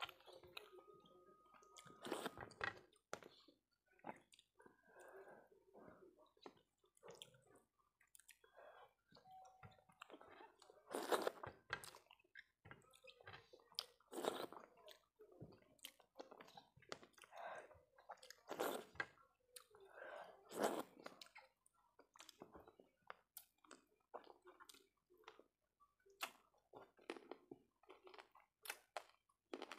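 Close-miked chewing and mouth sounds of someone eating rice and fish curry by hand: irregular smacks and clicks, a few of them louder.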